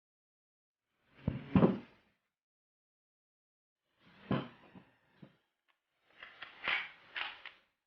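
Glock 17 Gen 4 pistol being handled and its parts worked, giving three short bursts of clicks and sliding knocks: about a second in, around four seconds in, and near the end.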